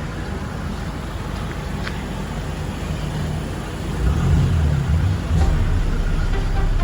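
Off-road vehicle engine running with a steady low rumble that grows louder about four seconds in.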